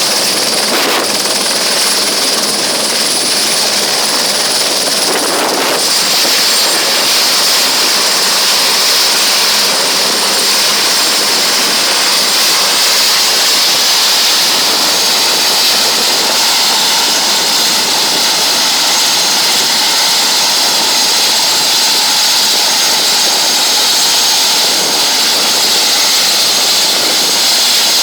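Helicopter running close by: a steady loud turbine rush with a high whine on top, the whine dropping slightly in pitch about 6 seconds in and again about 13 seconds in.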